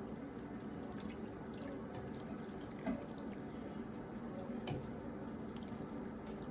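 Broth being ladled from a pot into a bowl: liquid pouring and dripping, with a couple of light knocks of the ladle.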